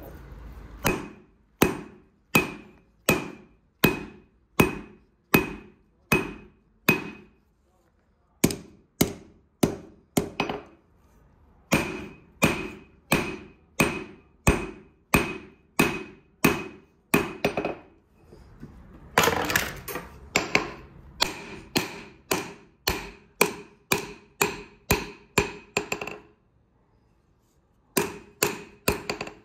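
Hand-hammer blows on a red-hot steel knife blade, forged from nails, lying on an anvil: about three strikes every two seconds, each with a short metallic ring. The hammering stops briefly a few times, and a short scraping noise comes partway through.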